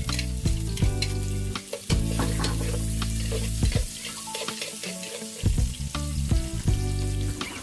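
Onion and garlic sizzling in hot oil in a frying pan, with frequent clicks and scrapes of a utensil stirring them.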